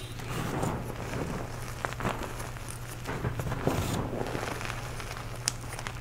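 Dry, crumbly blue powder with small clumps being scooped, squeezed and dropped by hand in a bowl: a soft crunching and pattering of falling powder, with a few sharp cracks as clumps break. A steady low hum runs underneath.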